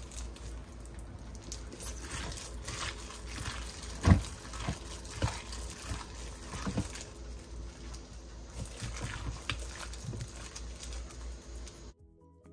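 Raw beef stew cubes being mixed by a gloved hand in a slow-cooker crock: irregular soft wet squishes and slaps of the meat being turned over, with one louder knock about four seconds in.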